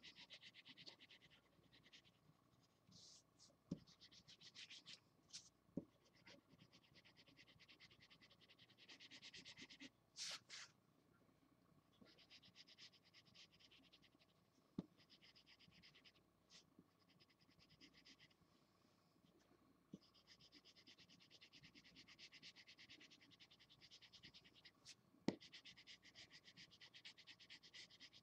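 Felt-tip marker scratching across paper in quick back-and-forth colouring strokes, faint, in runs lasting several seconds with short pauses between them. A few small knocks stand out, the sharpest near the end.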